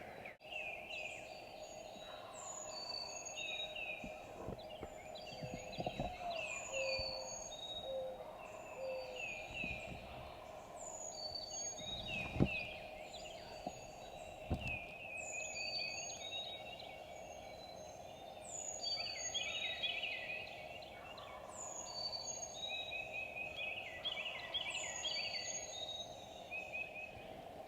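Wild turkey gobbling in the distance through a woodland chorus of songbirds, whose repeated high chirps and falling notes go on throughout. A couple of soft knocks come about twelve and fifteen seconds in.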